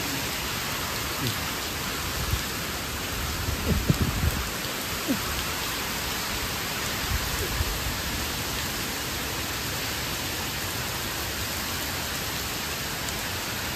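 Heavy rain pouring down in a steady hiss. A few brief low thumps come about four seconds in.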